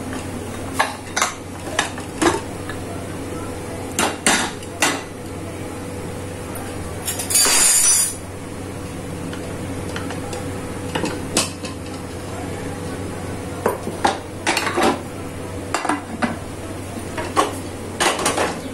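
Metal clatter of an aluminium pressure cooker being opened and a steel bowl lifted out of it and set down: scattered clinks and knocks of metal on metal, with a harsh rasping scrape of about a second midway, over a faint steady hum.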